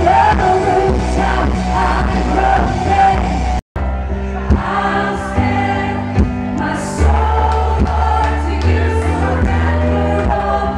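Contemporary worship music: a band with several voices singing, a steady bass line under it, with a split-second dropout just under four seconds in.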